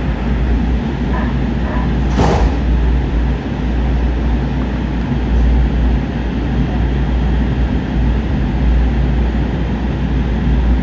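Inside a light rail train car pulling out of a station: a steady low rumble and hum of the car running, with one brief sharp sound about two seconds in.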